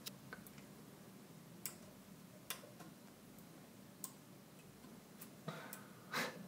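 Faint, irregular clicks and taps of needle-nose pliers and an LED's thin wire leads against a printed circuit board as the LED is worked into its holes, about one click a second, with a louder, longer scrape near the end.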